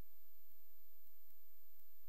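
Steady electrical noise floor of a recording with no distinct events: a low hum with hiss and faint high-pitched whine tones.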